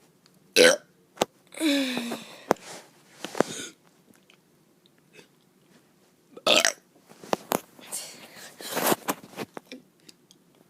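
A child burping repeatedly, with several short burps and one longer burp that falls in pitch about two seconds in. A few sharp clicks come between them.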